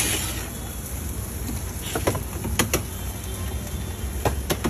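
A metal knife striking a steel griddle: sharp clinks, two close together about two seconds in, two more just after, and another pair near the end, over a steady low hum.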